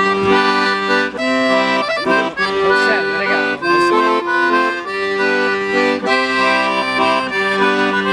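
Piano accordion playing a tune, with sustained chords and melody notes changing every half second to a second.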